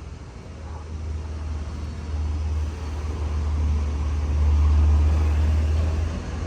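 A road vehicle passing close by: a low rumble that builds to its loudest about two-thirds of the way through and then fades.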